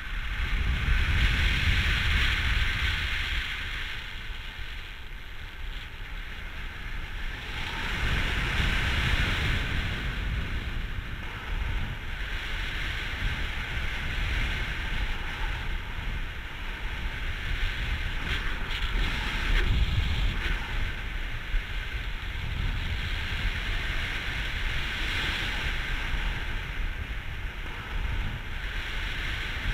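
Wind rushing over the microphone of a camera worn by a paraglider pilot in flight: a low buffeting rumble under a hissing rush that swells and eases every few seconds.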